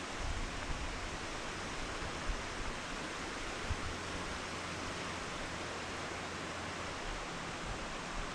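River water rushing, a steady, even hiss with a few faint knocks.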